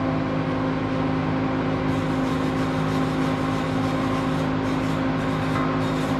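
Steady mechanical hum of machinery running, with several held tones and no change in pitch or level, and faint light crackling over it through the middle.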